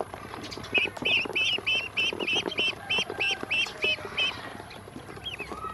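Ducklings peeping: a run of about a dozen quick, evenly spaced high peeps, about four a second, that stops a little past the middle. Under it, their bills peck feed off the bottom of a plastic basin in rapid light taps.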